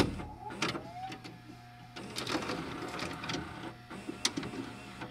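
Glitchy electronic intro sound effects: scattered sharp clicks and crackles over a low steady hum, with a short gliding tone about a second in.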